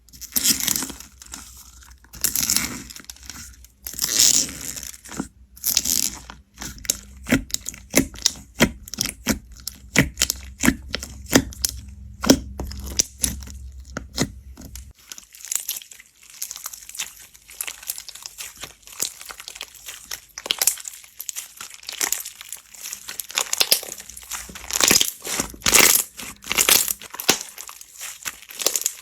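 Slime being squeezed and pressed by hand, giving a dense run of crackling pops and crinkly snaps.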